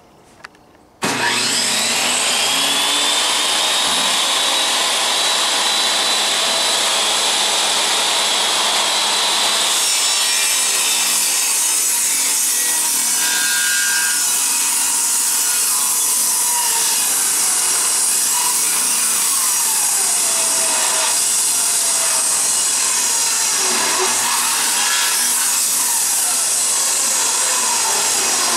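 A motor-driven power tool switches on about a second in, whines up to speed over a few seconds and then runs steadily and loudly.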